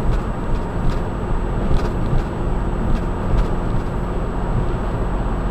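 Volkswagen GTI driving, heard from inside: steady engine and road rumble with a faint high squeak repeating over the first couple of seconds, the strange noise that shows up when accelerating through a right turn.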